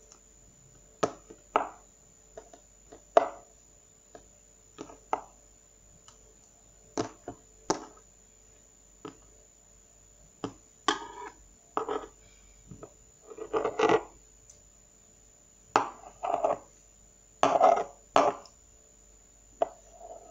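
Table knife cutting slime on a hard tabletop: irregular sharp clicks and taps of the blade striking the table, with longer, louder sticky sounds of the slime being pulled and pressed in the second half.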